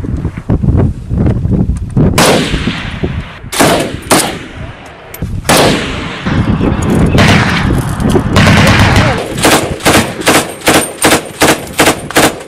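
Gunfire: scattered shots and short volleys, then near the end a steady string of heavy shots, about three a second.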